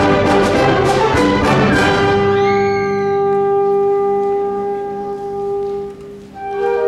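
Symphonic band playing, brass to the fore, with percussion strikes driving the full ensemble. About two seconds in, the strikes stop and the band holds a long sustained chord that dies away around six seconds. A softer new entry begins right at the end.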